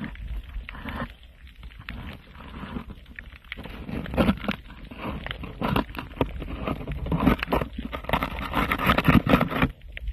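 Underwater sound heard through a submerged camera: a steady low water rumble with dense clicking and crackling, plus noisy surges that swell about four seconds in and again near the end.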